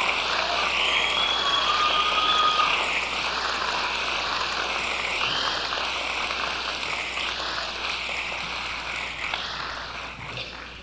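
Rushing synthesizer noise with a slow, repeating swishing sweep, fading out steadily at the end of a song.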